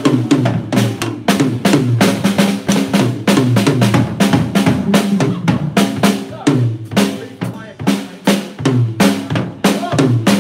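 Acoustic drum kit played hard and fast: rapid snare and tom strikes mixed with cymbal crashes and bass drum, stopping at the very end.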